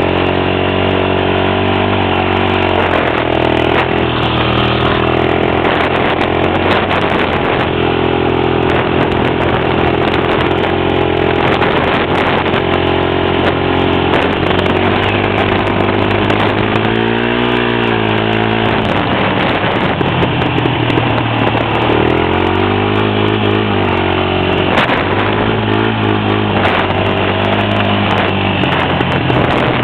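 Honda Recon 250 ATV's single-cylinder four-stroke engine running while under way. It is steady for about the first fifteen seconds, then rises and falls in pitch several times in the second half.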